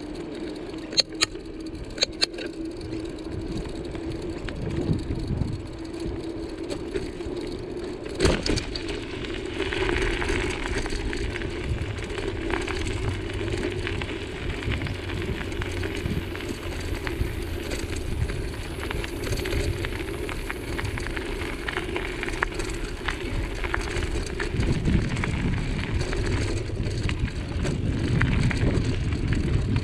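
Bicycle tyres rolling along a road with a steady hum, with a few sharp clicks and knocks from the bike in the first ten seconds. About ten seconds in the tyres move from asphalt onto loose gravel, and the rolling turns to a continuous rough crunching.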